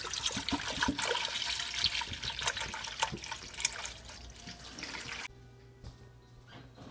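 Whole milk pouring in a thick stream from a gallon jug into a metal pot; the pour stops suddenly about five seconds in, leaving a faint steady low hum.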